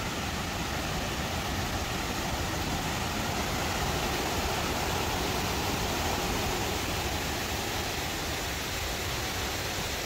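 Waterfall rushing: a steady, even wash of falling-water noise.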